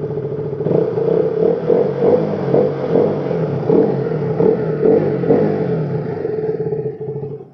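KTM RC 200's single-cylinder engine running with the throttle blipped over and over, a pulse about every second. The sound stops sharply near the end.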